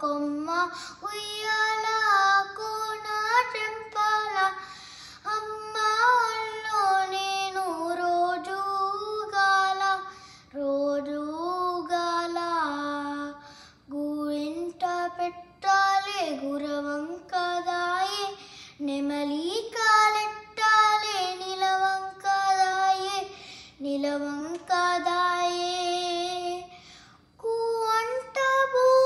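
A young boy singing a Telugu film song unaccompanied, in long phrases with sliding, ornamented pitch, pausing briefly for breath about halfway through and again near the end.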